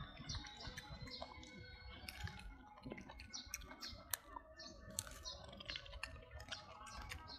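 Faint, irregular clicking and smacking sounds, several a second, most of them in the second half.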